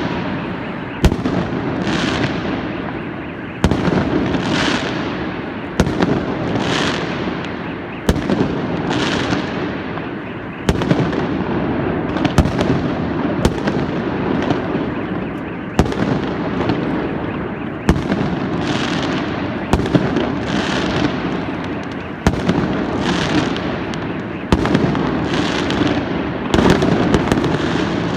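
Fireworks going off in rapid volleys, a sharp bang about once a second, each trailing off in a fading crackle, over a continuous din of other fireworks.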